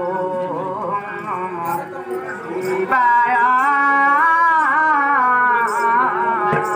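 A voice singing a Danda Nrutya folk song, half-declaimed at first, then in long, wavering held notes from about three seconds in.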